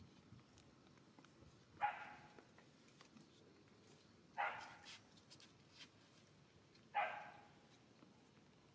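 An animal barking: three single barks about two and a half seconds apart, each with a sharp start and a short fading tail.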